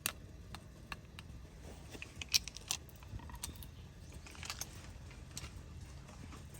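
Irregular light clicks and knocks, with a louder cluster about two to three seconds in, over a steady low rumble.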